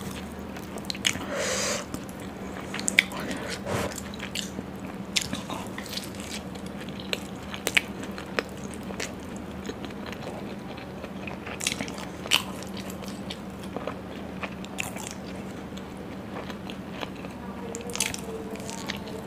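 Close-miked eating of puri with curry: wet chewing, lip smacks, mouth clicks and soft crunches of the fried bread, irregular throughout. A short rustling burst comes about a second and a half in, over a faint steady hum.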